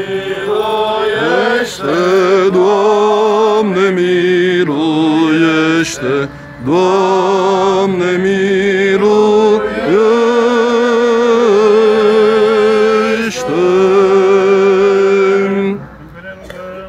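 Male voices singing Byzantine-style Orthodox chant: a melismatic line with heavy vibrato over a steady held low drone note. It breaks briefly about six seconds in and stops shortly before the end.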